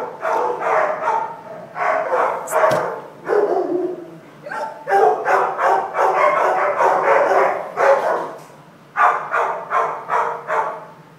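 A pack of large dogs barking, the barks coming in a rapid, overlapping run that stops shortly before the end.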